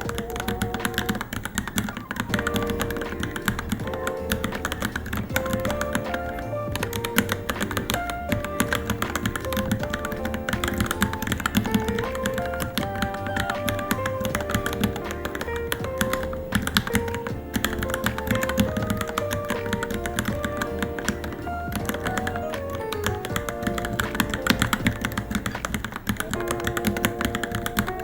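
Continuous fast typing on a Varmilo Minilo keyboard, a dense stream of key clicks. Background music with a melody plays along.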